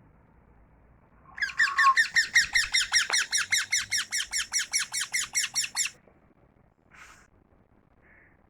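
Pet parrot calling in a fast, even run of sharp repeated notes, about seven a second, lasting some four seconds from about a second in, followed by two faint short calls near the end.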